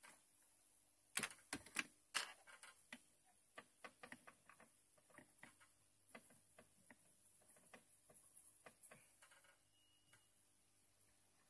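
Faint scattered clicks and taps of a computer motherboard being handled while it is cleaned with thinner. The loudest cluster comes a little over a second in, followed by lighter, irregular ticks as a tool is worked across the back of the board.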